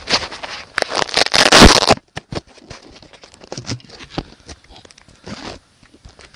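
Loud rustling and scraping close to the microphone for about two seconds, then scattered clicks and softer rustles.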